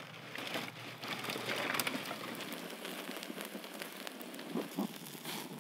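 Open wood fire crackling, a dense run of small pops and crackles with a few louder snaps.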